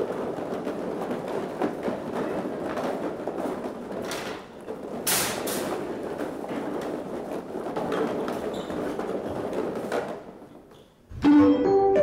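Busy clatter of knocks and rattling on stage, with two sharp high rustles about five seconds in. Near the end it dies away and keyboard music starts with loud held chords.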